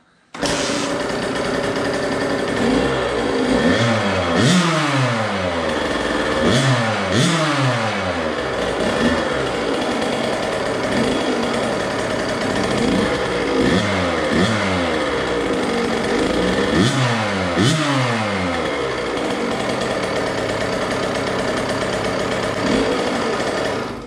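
KTM 65 SX two-stroke single-cylinder engine running through an FMF Turbinecore 2 spark-arrestor silencer, idling and revved in short throttle blips, mostly in pairs, several times, the pitch rising and falling with each blip.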